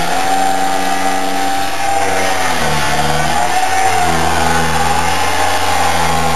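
Battery angle grinder running steadily, cutting at the sliding mechanism of a jammed Abloy solenoid door lock; its pitch dips about three seconds in as the disc bites, then recovers.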